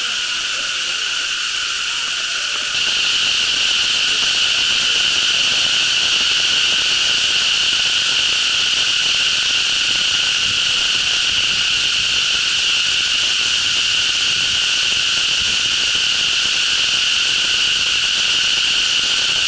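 Cicadas in the trees buzzing loudly and without a break, growing louder about three seconds in.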